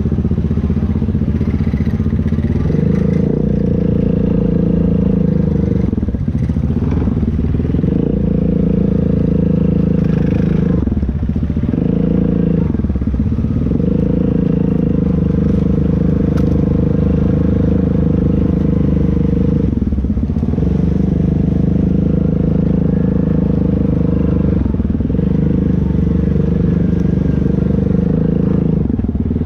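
ATV engine running at steady throttle. Its pitch is held for several seconds at a time and dips briefly about five times as the throttle is let off and opened again.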